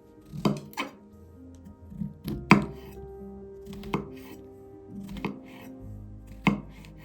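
Knife chopping on a cutting board: about seven sharp, irregularly spaced strokes.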